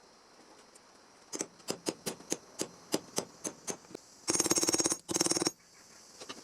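Two short bursts of MIG welding, tack-welding a steel patch panel into a car's rear fender: a fast crackling buzz lasting under a second, then a shorter one. Before them, a run of light clicks at about three or four a second.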